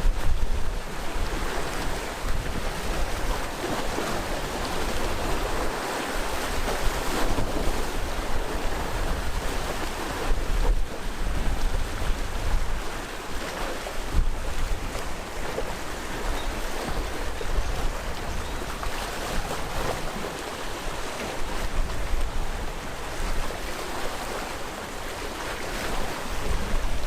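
Sea waves washing steadily onto the shore as a continuous surf wash that swells and eases, with a low rumble of wind on the microphone.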